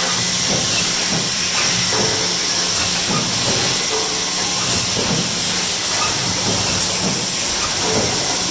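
Stamping-press line with coil straightener and feeder running: a steady loud hiss over a low machine hum, with faint knocks about once a second.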